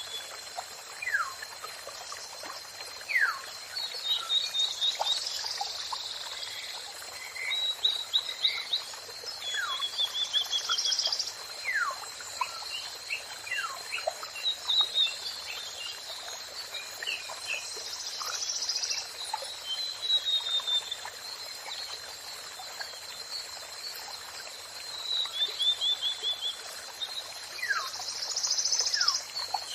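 Songbirds calling: bursts of rapid high trills and short falling whistles that come back every few seconds, over a steady hiss with a thin constant high tone.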